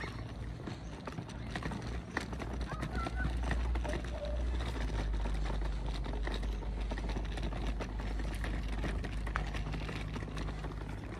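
Footsteps walking over stone paving at an even pace, with a steady low rumble underneath.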